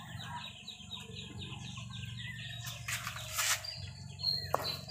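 Chickens clucking in the background, a fast run of short repeated calls over a steady low hum, with a couple of brief scraping noises about three seconds in.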